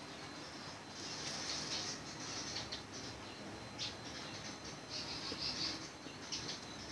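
Felt-tip marker squeaking and scratching on a whiteboard in short strokes of writing, with brief pauses between strokes.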